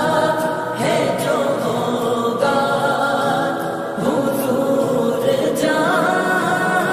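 Slowed-and-reverb naat: layered voices singing long held notes drenched in reverb, moving to a new note about every one and a half seconds.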